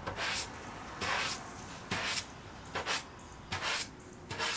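220-grit sandpaper on a hand sanding block rubbing along the edge of a wood veneer countertop, six short strokes about a second apart, smoothing the veneer edge flush with the top.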